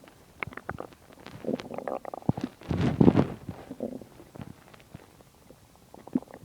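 Human stomach rumbling and gurgling while digesting a large meal: irregular short gurgles and pops, with the longest and loudest rumble about three seconds in.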